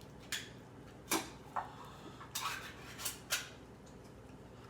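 Dishes being handled: about half a dozen light clinks and knocks at irregular intervals, the loudest about a second in and just after three seconds.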